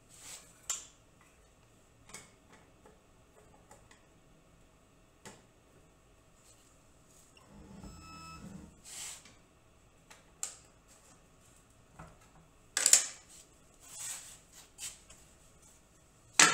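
Handling sounds on a router table: light clicks and clacks as a metal touch plate and a plastic insert ring are lifted and fitted, and a brief whir with a few held tones about halfway through. Several sharp knocks follow, the loudest near the end as wooden boards are set down on the table top.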